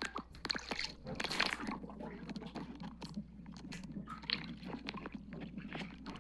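Muffled water sound picked up by a camera held under the water of a swimming pool: irregular crackling and clicking over a soft watery hiss.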